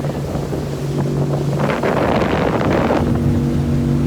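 Small motorboat's engine running steadily underway, with a loud rushing noise for about a second in the middle.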